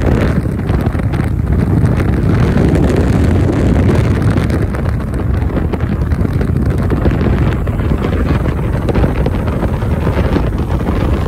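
Motorboat under way on open water: a steady low rumble of engine and hull, with wind buffeting the microphone.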